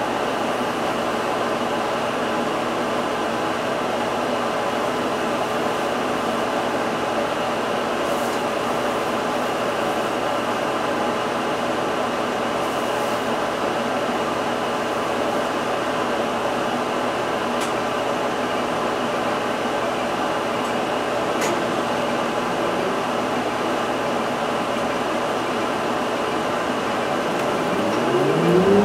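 Inside a stationary Isuzu Erga Hybrid city bus: a steady hum of ventilation fans and running machinery, with several fixed tones. Near the end a rising whine sets in as the bus begins to pull away.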